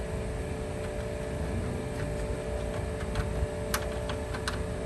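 A few sharp, light clicks from hands and tools working on car parts, two louder ones near the end, over a steady background hum.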